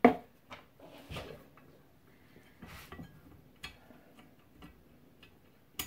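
Light metal clicks and ticks as nuts are threaded by hand onto the cover studs of an Arctic Cat roller secondary clutch, with a sharper click right at the start and another near the end.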